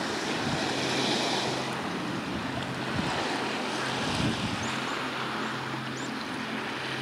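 Wind and sea wash with wind buffeting the microphone, over a steady low hum.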